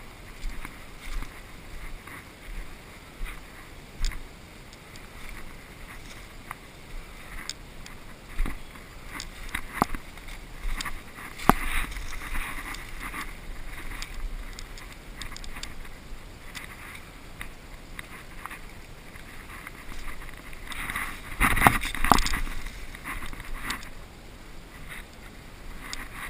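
Irregular rustling and scraping with scattered clicks and knocks, like handling and movement close to the microphone, with a louder cluster of rustles and knocks near the end.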